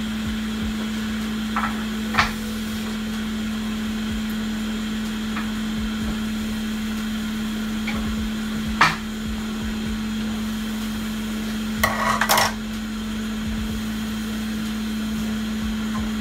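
A few small, sharp clicks and clinks of hand tools being handled and set down on a workbench, with a quick cluster of clinks about twelve seconds in, over a steady low hum.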